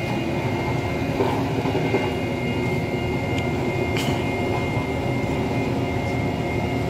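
Heavy vehicle's diesel engine running steadily, with a single sharp click about four seconds in.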